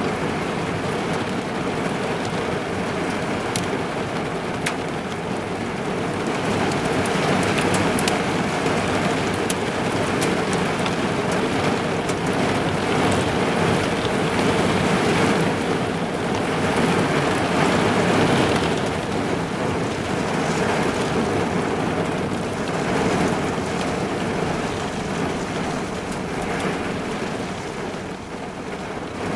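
Heavy rain falling on a car's roof and windows, heard from inside the car: a dense, steady patter that swells louder for several seconds in the middle, with a few sharp single drop hits in the first few seconds.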